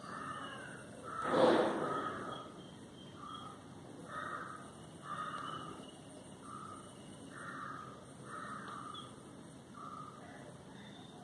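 Indian grey hornbill giving short, repeated calls, roughly one a second, with one louder, rougher call about a second and a half in.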